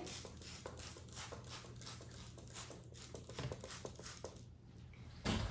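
Plastic trigger spray bottle squirted over and over, faint short hissing sprays at about four a second, stopping a little after four seconds in.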